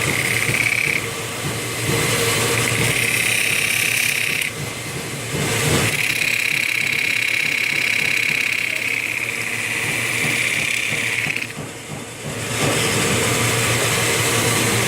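Oliver wood lathe running with a steady motor hum while a turning tool cuts the spinning wood, a high-pitched cutting sound that comes and goes in three passes, the longest about five seconds.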